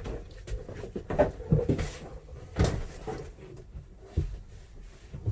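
A sheet of FRP wall paneling knocking and bumping against the wall and cabinetry as it is positioned and pressed into place, with several dull thumps at irregular intervals.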